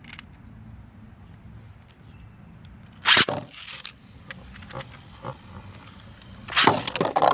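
3D-printed Beyblade spinning tops battling in a stadium: a low whirr of spinning, then loud clattering hits about three seconds in and again near the end.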